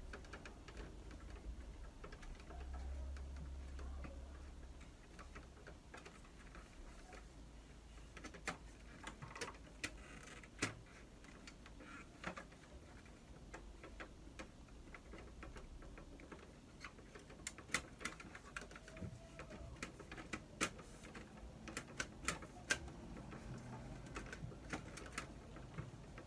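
Scattered small clicks and taps from the casing of a Samsung ML-1660 laser printer being handled during disassembly, plastic and sheet-metal parts knocking as hands work at the side panel. The clicks come irregularly, thickening a little before halfway and again in a busier flurry in the last third.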